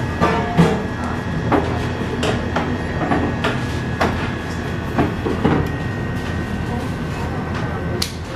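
Spatula scraping and tapping against a stainless steel saucepan as thick pastry cream is scraped out onto a tray: a series of short scrapes and knocks, about eight in all, over a steady background hum.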